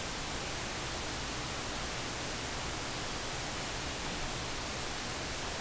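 Steady, even hiss with no other sound in it, typical of a camera microphone's own noise.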